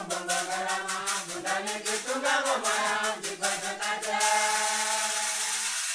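A song with voices chanting over a fast, even rattle beat. About four seconds in the beat stops and a single note is held over a steady high hiss.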